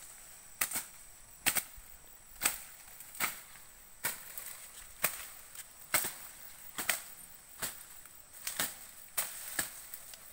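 A series of sharp, short knocks, roughly one a second and slightly irregular, over a steady faint high-pitched tone.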